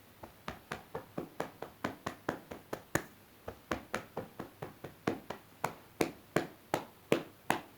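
Rapid, even tapping of a hand on the arm, about five or six taps a second, with a brief pause about three seconds in. This is qigong meridian tapping along the pericardium meridian, from the front of the bicep down to the wrist.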